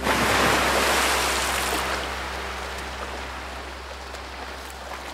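A sudden wash of hissing noise that slowly fades, over a steady low hum.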